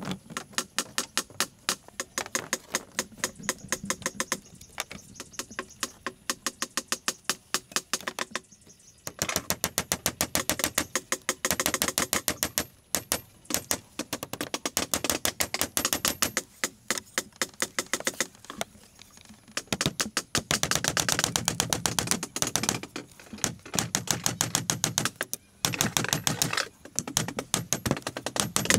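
A hand tool striking bamboo in quick, even strokes, several a second, in runs broken by short pauses.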